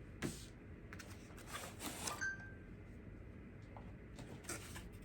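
Faint rustling and light taps of a computer mouse's retail packaging being handled and opened, in a few short bursts, with a brief small squeak about two seconds in.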